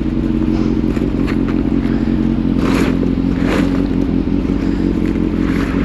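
Motorcycle engine running at a steady, unchanging pitch, with two brief noisy rustles about three seconds in.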